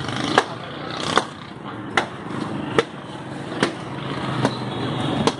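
Sharp knocks repeating at an even pace, a little more than once a second, over a steady street background.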